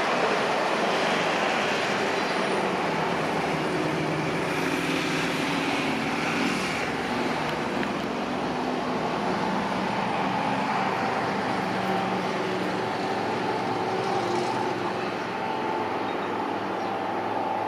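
Jet engines of a Boeing 737-800 running, a steady rushing noise with a few faint held tones, slowly fading.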